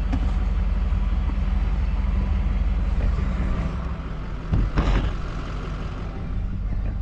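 Rollback tow truck's engine idling steadily, with a short cluster of knocks about four and a half seconds in.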